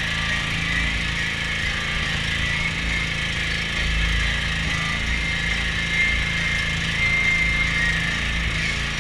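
Small generator engine running steadily at a constant speed.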